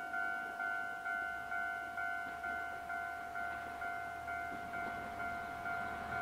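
Railway level-crossing warning bell clanging steadily about twice a second, while the low engine hum of an approaching YR-3000 series diesel railcar builds underneath.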